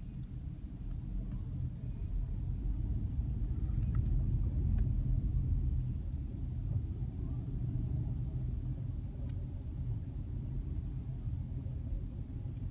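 Low, steady rumble of a car moving slowly, heard from inside the cabin: engine and tyre noise that swells a few seconds in and then eases.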